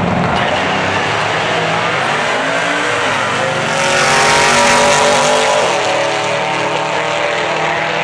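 Two drag-racing cars, the ChevStang and an AMC Gremlin, launching off the start line and running hard down the strip, their engines climbing in pitch and dropping back at each gear change. The sound is loudest about four to five seconds in as the cars pass in front.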